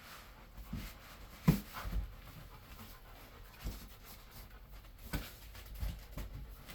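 Handling noise from unpacking a diesel heater from its box: a series of separate knocks and thumps as parts and packaging are moved, the loudest about a second and a half in.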